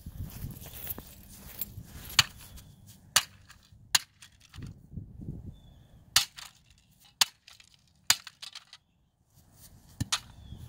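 A bat striking a Lego truck again and again, breaking it apart: about seven sharp cracks, unevenly spaced.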